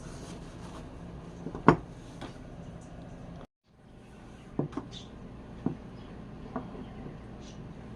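A handful of short knocks and clicks, like metal hand tools being handled and set down on a bench, over a steady background hum. The sound drops out completely for a moment about three and a half seconds in.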